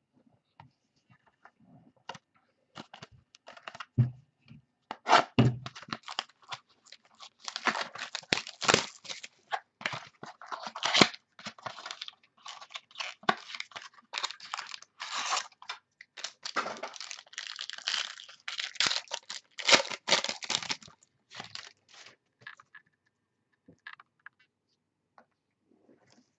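Trading card packaging being torn open and baseball cards handled: irregular tearing, crinkling and rustling, busiest from about five seconds in until a few seconds before the end.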